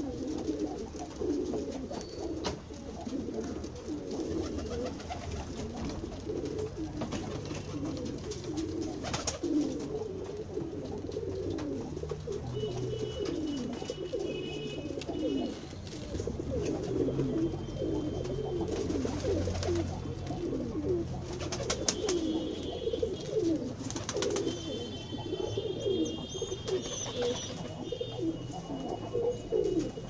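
Domestic pigeons cooing, many low coos overlapping without a break.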